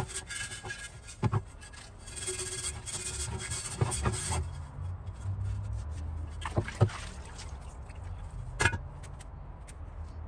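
Scouring pad scrubbing a lye-stripped cast iron Dutch oven lid in a plastic barrel of wet solution: scratchy rubbing for about the first four seconds. Then it goes quieter, with a few sharp knocks as the lid is handled and lifted out.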